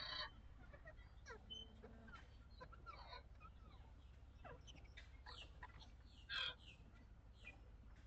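Birds calling, with many short calls sliding down in pitch and one louder harsh caw about six and a half seconds in, over a steady low wind rumble.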